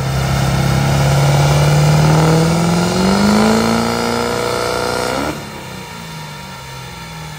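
A truck engine revving, its pitch climbing steadily for about four seconds, then cutting off abruptly a little over five seconds in.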